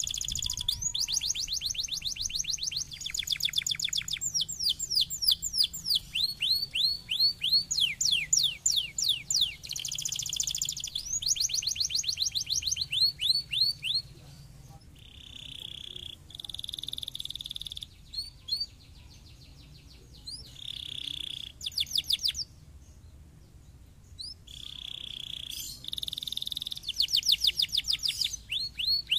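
Domestic canary singing: fast trills of repeated falling notes mixed with buzzy rolls. The song runs almost without a break for about half the time, then comes in shorter phrases with pauses, and picks up again near the end.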